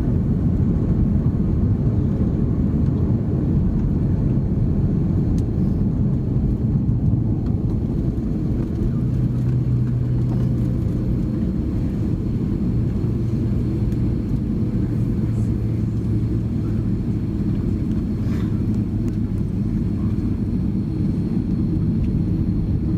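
Airbus A330-300 on the ground just after landing, heard from inside the cabin: a steady low rumble of engines and rolling wheels, easing a little about eight seconds in, with a steady low hum joining soon after.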